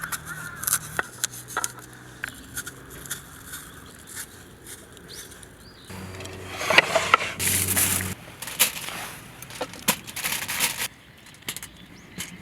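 Campfire crackling with sharp pops, mixed with scraping from cooking at the fire, louder for a couple of seconds past the middle; a bird chirps briefly near the start.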